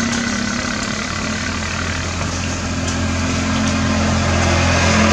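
Vehicle engine idling steadily, a low, even hum.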